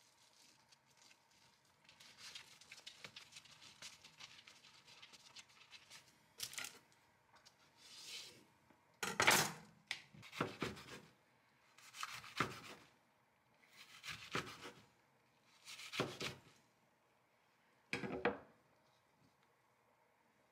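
A filled tortilla being rolled up tight by hand on a wooden cutting board, a soft rustling and rubbing, then a knife slicing the wrap into rounds against the board: about seven separate cuts a second or two apart, each a short scrape.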